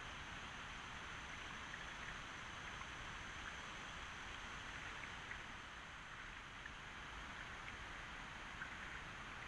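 Faint water sounds from a kayak on a calm river: small scattered drips and trickles from the paddle over a steady hiss.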